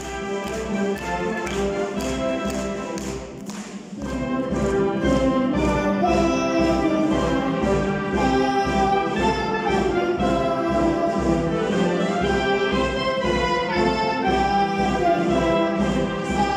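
Military concert band of brass and woodwinds playing a song accompaniment with a steady beat of about two a second. After a short dip about four seconds in, it plays louder, and a child's voice sings the melody over it.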